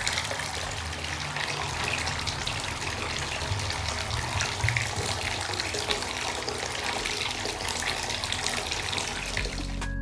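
Bath tap running full into a filling bathtub, the stream splashing into foamy bathwater with a steady rushing hiss. It cuts off about half a second before the end, when music takes over.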